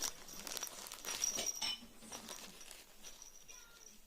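Light taps and scuffles of a kitten moving and playing on a tabletop, a little busier about a second in.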